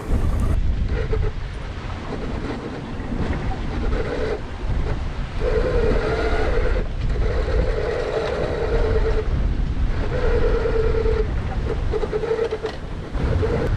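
Wind buffeting the microphone over rushing sea as a small sailing yacht runs under way, with a steady whistling tone at one pitch that comes and goes in stretches of a second or two.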